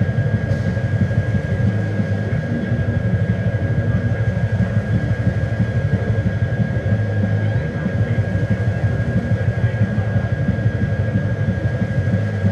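A loud, steady low mechanical rumble with a rapid flutter, over a constant thin high-pitched tone.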